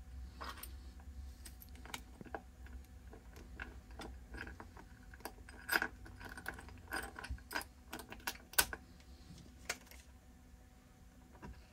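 Light clicks and metallic taps of the carrying handle's metal end caps and screws being set by hand onto the amp cabinet, a few sharper clicks in the middle.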